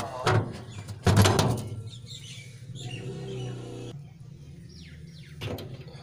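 Two loud knocks with a short scrape, the bigger one about a second in, from handling the upturned washing machine while its wash-plate bolts are tightened. A bird chirps briefly near the end.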